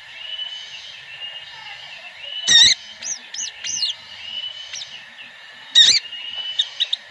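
Sogon sunbirds calling together: thin, high arching chirps over a steady high trill, with two loud sharp chip notes about 2.5 and 6 seconds in.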